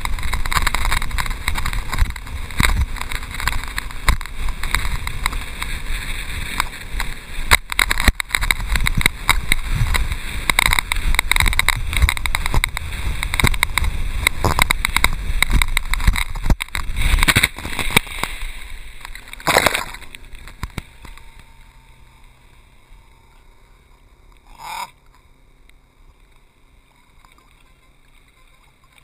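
Water rushing and spraying against a towed inflatable tube as it skims across a lake, with wind on the microphone. About twenty seconds in there is a short loud burst, then the rush dies away to quiet water lapping.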